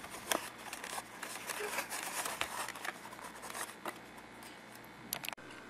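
Faint scratchy rustling with scattered light clicks from hands handling a thin foam model-plane wing and foam fuselage as the wing is set onto the fuselage for gluing.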